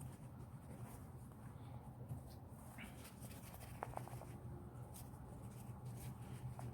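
Faint rag rubbing and wiping on the metal parts of a Milwaukee 3/8" ratchet, with a few light clicks, over a low steady hum.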